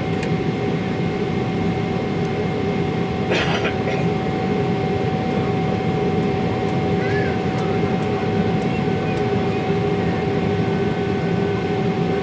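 Steady jet drone of a Boeing 777 heard inside the passenger cabin: engine and airflow noise with a constant hum of several steady tones. A short rattle or clatter cuts in about three seconds in.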